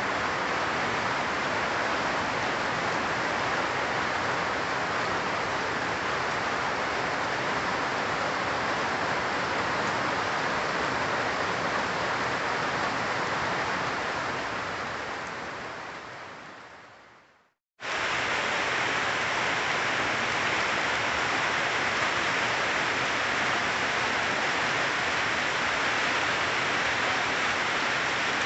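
Steady rain falling on leafy trees, an even hiss with no distinct drops standing out. About two-thirds through it fades out to silence over a few seconds, then starts again abruptly at full level.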